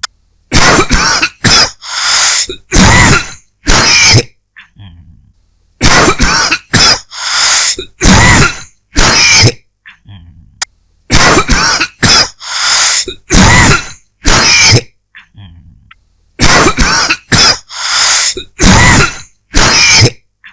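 A person's dry cough, coming in fits of four or five loud, harsh coughs each, about four fits with short gaps between them.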